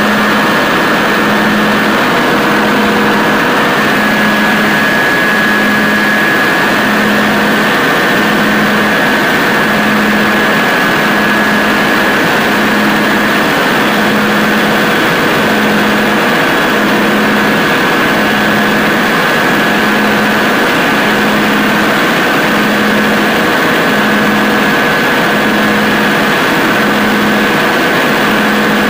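Caterpillar 3512 V12 diesel generator set running steadily at 1800 rpm under load-bank load, with a steady high whine over the engine noise. A lower tone beeps on and off about every second and a half.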